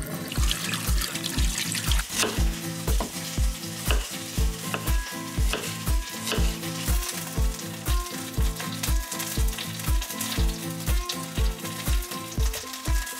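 Background electronic music with a steady kick-drum beat and repeating synth notes.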